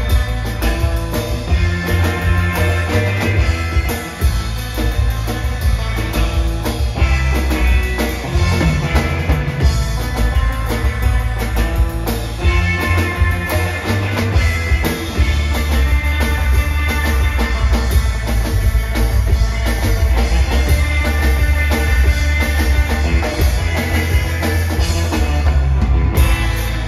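Live instrumental surf rock: electric guitar playing over a drum kit and a plucked upright bass, with a steady drum beat.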